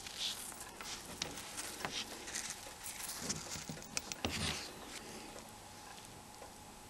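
Faint clicks, ticks and light scraping of small plastic and metal phone parts being handled and pulled apart as the Nokia N95's assemblies are separated.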